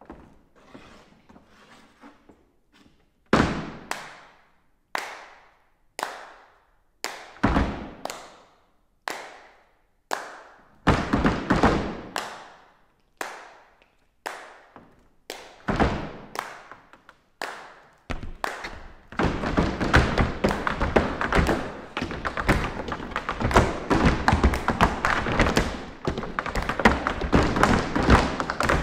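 Tap dancing: tap shoes striking a hard floor, at first single sharp strikes about a second apart that echo in a large hall, then growing into clusters and, from about two-thirds of the way in, fast continuous tapping by several dancers.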